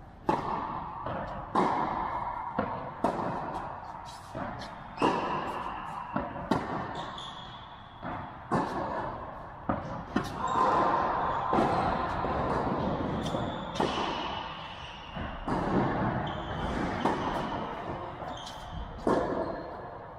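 Tennis ball being struck by rackets and bouncing during a serve and rally, a sharp pop every second or so, echoing in a large indoor hall.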